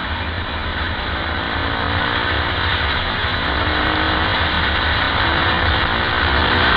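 Onboard sound of a KTM 520 EXC supermoto's single-cylinder four-stroke engine pulling steadily at road speed, its note and loudness rising slowly, under heavy wind rush on the microphone.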